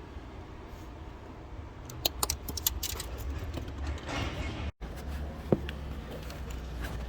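Light clicks and clinks from small parts being handled: a quick run of them about two seconds in and a single click a little past the middle, over a low steady rumble.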